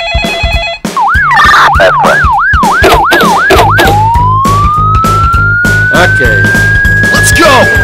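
Police siren: a fast up-and-down yelp, about two sweeps a second, switching a little under four seconds in to a slow wail that rises and starts to fall near the end, over background music with a steady beat. In the first second the tail of a telephone ringing is heard.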